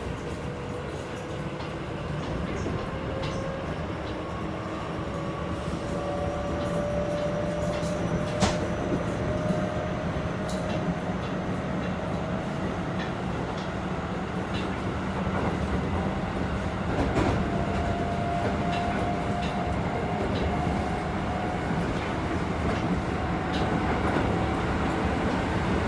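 Keisei 3700 series electric train heard from inside the car while running. Its Toyo GTO-thyristor VVVF-driven traction motors give a whine that slowly rises in pitch as the train gathers speed, over a steady rumble of wheels on rail, with occasional sharp clicks.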